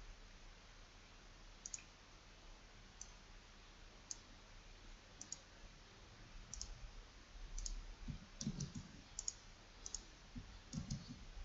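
Computer mouse clicking, single and double clicks spaced about a second apart, over faint steady hiss, with two short low rumbles in the last few seconds.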